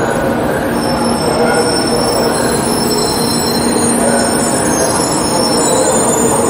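A 700 series Shinkansen train pulling slowly into the station platform: steady running noise with several thin, high squealing tones held over it.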